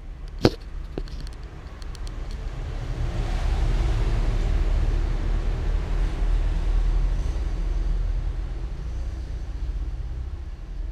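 A sharp knock about half a second in, then a low rumbling noise that swells over a few seconds, holds, and slowly fades.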